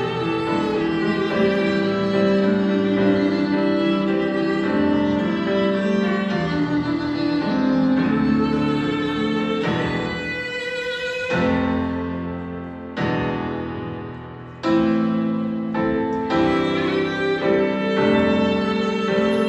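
Instrumental dance accompaniment: a bowed string melody held in long notes over piano. About two-thirds of the way through the music thins out and fades, then comes back in suddenly.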